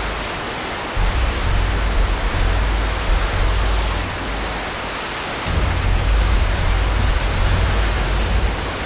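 KingTech model-aircraft jet turbine running loud: a broad rushing roar with a thin, steady high-pitched whine that steps up slightly near the end. A deep low rumble under it drops away twice.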